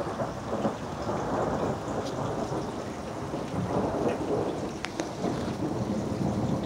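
Thunder rumbling in a long, steady roll with no sharp crack, with rain falling.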